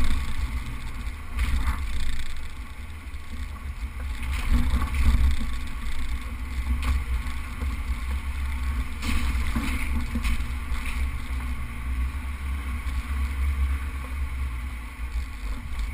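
Suzuki four-wheel drive running slowly along a rough sand and rock beach track: a steady low rumble of engine and wind on the microphone, with occasional knocks as it bumps over the uneven ground.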